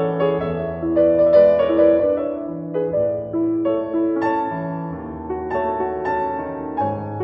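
Background piano music: a steady run of struck notes over low bass notes.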